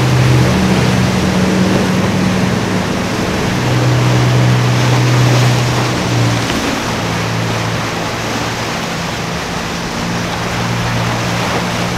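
Formula express cruiser's engines running at speed with a steady low drone, over the rush of water and spray from its hull through choppy inlet waves. The engine note shifts slightly about halfway through.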